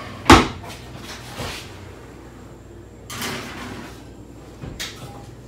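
A sheet pan being put into a kitchen oven and the oven door handled: a loud clunk just after the start, a softer knock about a second later, a short rush of noise about three seconds in, and a sharp click near the end.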